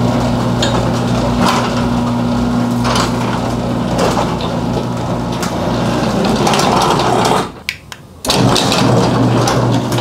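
Motorised garage door opener running with a steady hum while the sectional door travels, its rollers and hinges rattling and clicking along the tracks. The sound breaks off for under a second near the end, then runs again as the door closes. The rattling and squeaking come from a six-month-old door whose moving parts are not yet lubricated.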